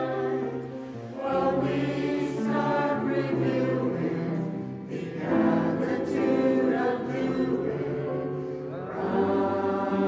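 Mixed choir singing in harmony in sustained phrases, with a small jazz band (piano, upright bass, drums, trombone and clarinet) accompanying.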